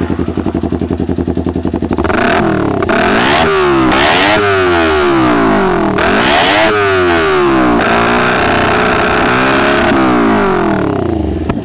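2018 Kawasaki Ninja 250 parallel-twin engine breathing through a Claw Racing carbon short silencer on a stainless full-system header, with no dB killer fitted. It idles, then is revved repeatedly in a string of quick throttle blips, the pitch rising and falling with each, before dropping back to idle near the end.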